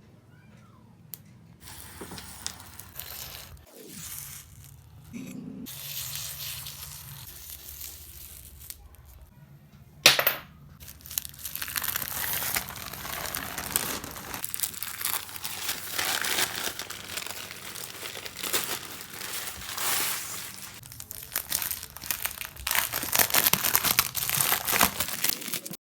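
Packaging being crinkled and torn open during unboxing, in irregular rustling bursts, with one sharp loud snap about ten seconds in.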